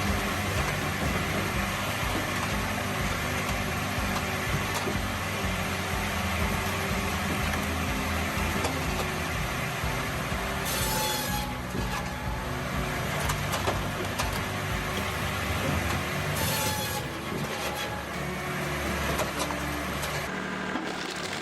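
Large log-processing machine with a circular saw running and cutting through logs, giving steady heavy machinery noise. The sound changes abruptly a few times.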